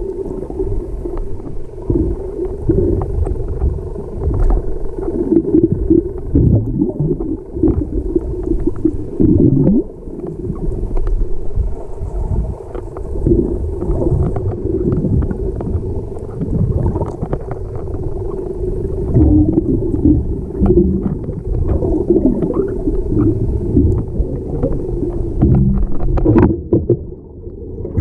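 Muffled underwater sound from an action camera in its waterproof housing: an irregular low rumbling and gurgling of water moving around the camera.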